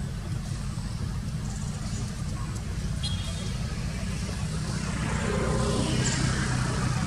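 Steady low rumble of outdoor background noise, growing a little louder about five seconds in.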